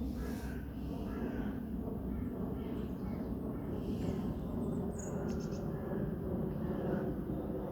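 Scattered short bird calls over a steady low rumble, with a quick run of high chirps about five seconds in.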